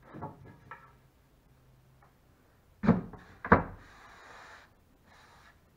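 Two sharp wooden knocks about half a second apart as a loose plywood seat panel is set down on the boat's wooden shelf, followed by a short scrape as the panel is slid over the wood.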